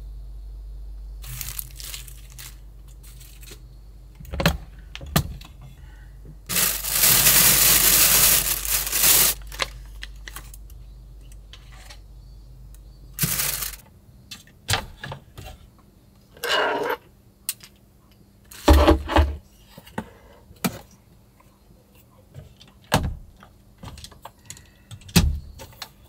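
Small sounds of things being handled inside a camper van. A low steady hum runs until about halfway and then stops, with a long rustle around 7 to 9 seconds in. After that come scattered clicks and knocks as an overhead cabinet is opened and a flat device is taken out.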